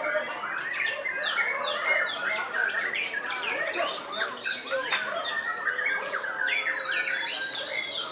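A dense chorus of caged songbirds, white-rumped shamas among them, singing and calling over one another in many quick rising and falling notes without a break.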